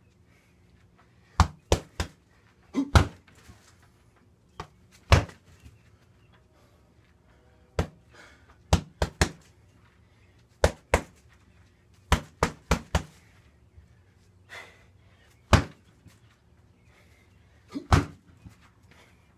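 Punches and kicks landing on a tall standing punching bag: sharp hits, some single and some in quick combinations of two to four, with pauses of a second or more between.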